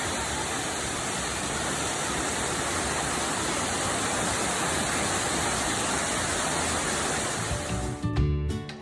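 Waterfall running as a steady, even rush of falling water. Music comes in near the end.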